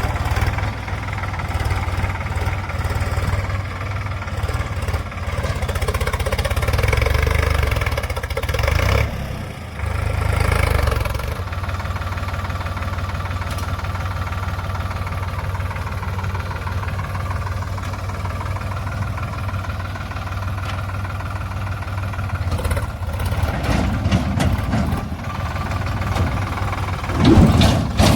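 Diesel engine of a tractor or backhoe loader running steadily, with a brief drop about a third of the way through before it picks up again, and a louder surge near the end.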